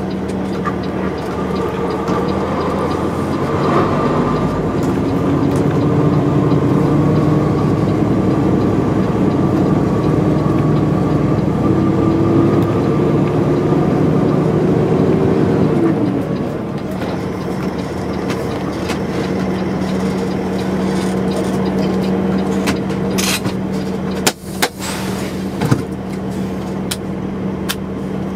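Peterbilt semi-truck's diesel engine heard from inside the cab, its pitch climbing slowly under throttle for about twelve seconds, then dropping back off throttle and running steadily at low speed. A few short hisses and clicks come near the end.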